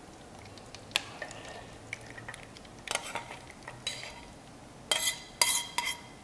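Cendol coconut-milk mixture poured from a metal saucepan into a round aluminium cake mould, with metal clinking and scraping a few times. The loudest, slightly ringing clinks come near the end as the pour finishes.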